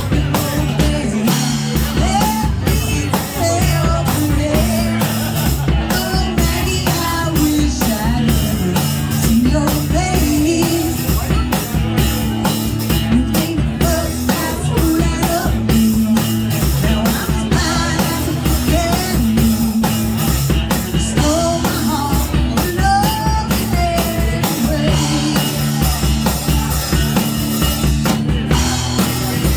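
Rock music with a steady drum-kit beat and a wavering melodic line over sustained low notes.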